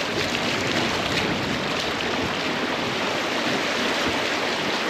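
Steady rushing of water along a moving sailboat's hull through a tidal current, an even hiss without breaks.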